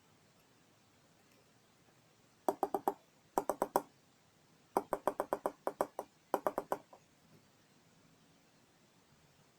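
Four quick runs of sharp clicks, about eight a second, each run a few clicks long, with a short pause between runs.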